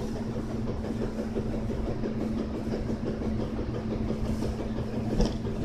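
Steady low machine hum and rumble, with one short click about five seconds in.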